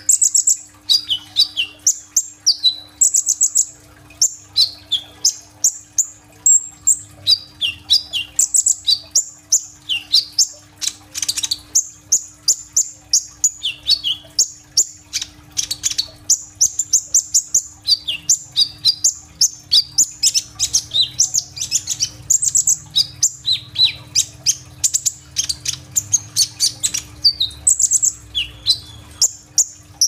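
A kolibri ninja (a sunbird) singing without pause: a fast, high-pitched string of sharp chirps, trills and falling whistled notes, in the rapid 'full isian' song full of mimicked phrases that keepers play to draw young birds into song. A faint steady hum lies underneath.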